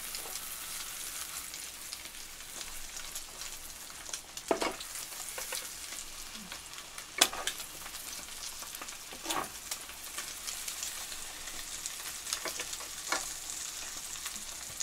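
French toast frying in butter in a pan: a steady sizzle, with a few short knocks spread through it.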